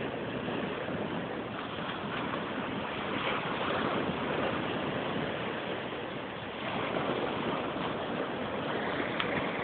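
Steady rushing noise of ocean surf, swelling a little about two-thirds of the way in.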